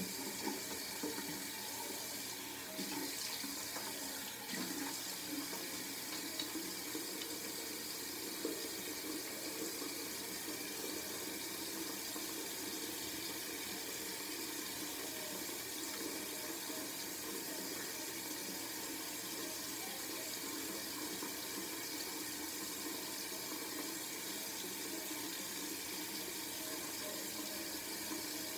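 Bathroom sink tap running steadily into the basin during face washing, with a few soft knocks in the first several seconds.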